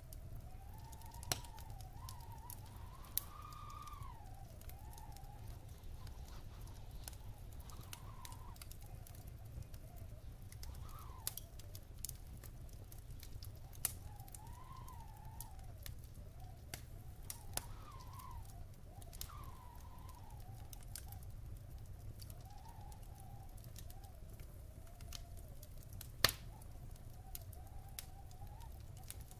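Wood fire in a fireplace crackling, with scattered sharp pops, the loudest about 26 seconds in. Under it runs a steady low rumble, with a thin whistle that wavers up and down in pitch.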